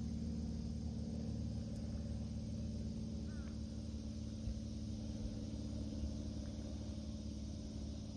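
A steady, engine-like mechanical hum with a low rumble, as from a motor running nearby, holding one even pitch throughout. A faint short chirp sounds once about three seconds in.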